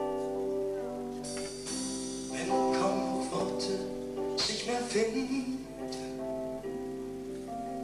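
A schlager band playing an instrumental passage: sustained chords with plucked guitar notes, and the chords change every second or so.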